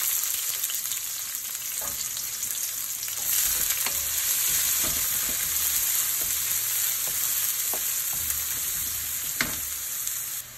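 Chopped onion and garlic sizzling in hot oil in a wok, with a steady hiss, stirred with a wooden spatula that scrapes and clicks against the pan a few times.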